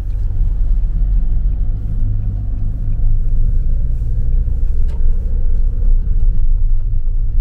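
Nissan Roox kei car driving, heard from inside the cabin: a steady low rumble of engine and tyre noise that gets a little louder about three seconds in as the car picks up speed onto the bridge.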